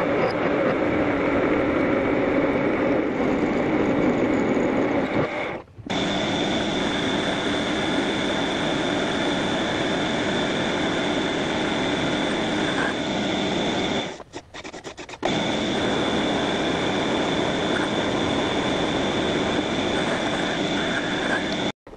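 Metal lathe running, its spindle and drive giving a steady mechanical whir while a steel bar turns in the chuck. From about six seconds in, a steady high whine sits over it. The sound drops out briefly twice and cuts off near the end.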